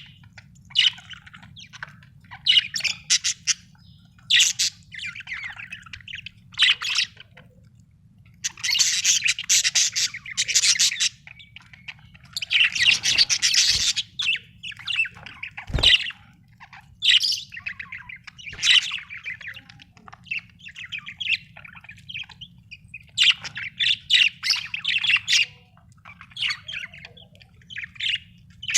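Budgerigars chattering and chirping, with harsh squawky calls, in bursts of a second or two with short pauses between. One sharp knock about halfway through.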